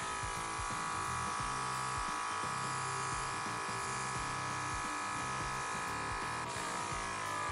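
Small airbrush compressor running with a steady buzzing whine, under the hiss of air through the airbrush as a silicone lure is sprayed; the whine shifts in pitch about six and a half seconds in.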